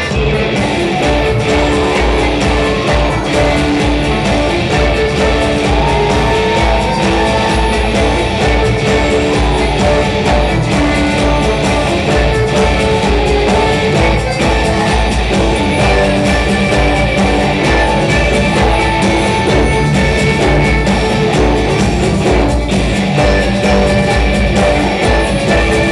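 A steampunk rock band playing live: electric guitar and violin over a steady drum beat, loud and continuous.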